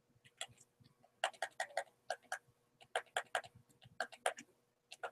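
Faint, rapid, irregular clicking at a computer while selecting and painting in Photoshop: about twenty sharp clicks, several in quick runs.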